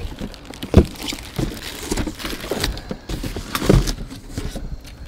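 A pressure washer being handled in its cardboard box and plastic packaging: a few knocks and thumps, the loudest about a second in and again near four seconds, with rustling between.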